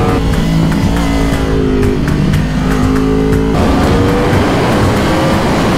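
Yamaha R1's crossplane inline-four engine pulling on the open road, heard from the rider's seat over wind rush. The note holds fairly steady, changes abruptly about three and a half seconds in, then climbs slowly as the revs rise.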